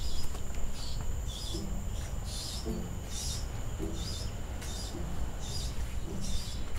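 Forest-garden ambience: a steady high insect buzz and short low bird calls, with footsteps on a dirt path crunching about twice a second.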